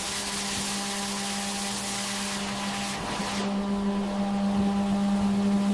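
An engine running steadily with a constant hum and hiss; the hiss thins about three and a half seconds in and the sound grows slightly louder toward the end.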